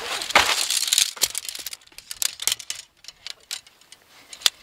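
Nylon tent fabric and a plastic bag rustling and crinkling as they are handled, then a run of short, light clicks and taps as the gear is set down and moved.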